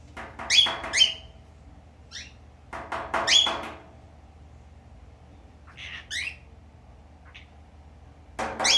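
Male cockatiel chattering in bursts of short squawks and quick whistled notes that sweep up and down in pitch, with pauses of a second or two between groups.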